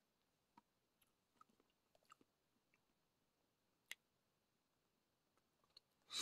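Near silence: quiet chewing with a few faint mouth and fork clicks as someone eats from a fork. The sharpest click comes about four seconds in.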